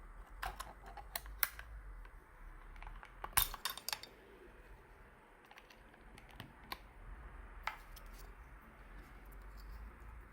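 Sharp plastic clicks and light clatter of keycaps being swapped on a Keychron K2 mechanical keyboard's switches. The clicks come in scattered groups, with a quick cluster of several a little over three seconds in.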